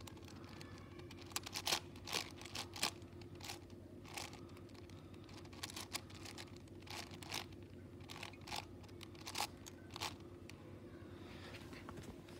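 Plastic 7x7 speed cube being turned by hand: irregular clicks and clacks as its layers snap round, one to three a second, over a faint steady low hum.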